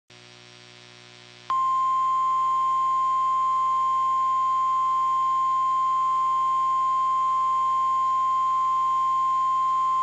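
NOAA Weather Radio's 1050 Hz warning alarm tone: one loud, steady, unbroken beep that starts about a second and a half in, after faint radio hiss and hum. It signals that a warning, here a tornado warning, is about to be read.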